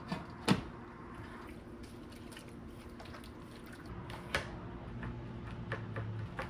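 Stovetop cooking in a hot oiled pan: scattered small pops and clicks, with sharper knocks about half a second in and again just past four seconds, over a steady low hum.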